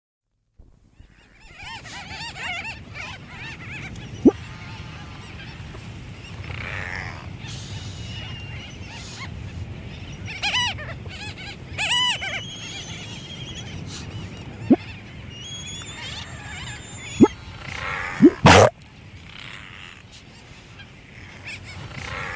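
Mediterranean monk seal vocalizing: a series of cries with stacked harmonics, the loudest about 18 seconds in and again at the end, over a steady low rumble with a few sharp clicks.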